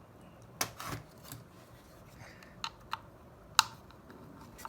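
Scattered sharp clicks and taps of laptop parts being handled: a pair near the start, then single clicks, the loudest about three and a half seconds in.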